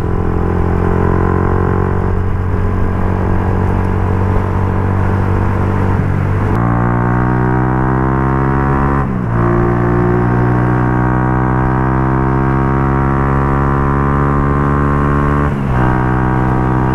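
Benelli RFS150i motorcycle engine through a Racing Line aftermarket exhaust, pulling steadily and then accelerating with a rising pitch. Brief breaks about six and a half, nine and fifteen and a half seconds in are gear changes.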